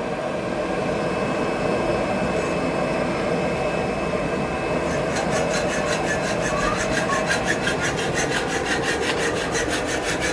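Steady rush of a forge fire. From about five seconds in it is joined by a fast run of rasping strokes, about six a second, of hot iron being worked by hand at the forge.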